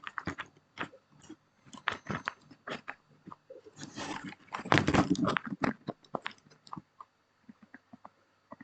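Outemu brown tactile mechanical keyboard switch being pressed and released over and over, giving a string of sharp plastic clacks, with a dense, louder run of clacks about four to five seconds in and fewer, single presses near the end.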